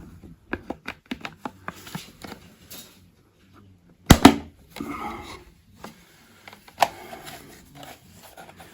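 Hands fitting a plastic alarm control panel housing: a quick run of light clicks and rattles, then a loud double knock about four seconds in, followed by more handling and a single sharp click near seven seconds.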